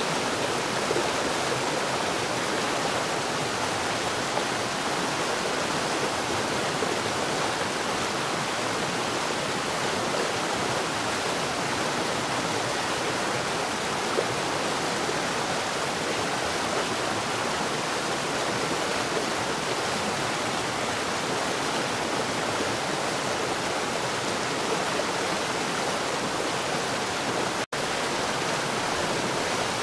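Steady heavy rain, an even hiss of water with no thunder, cutting out for an instant near the end, as at a loop splice.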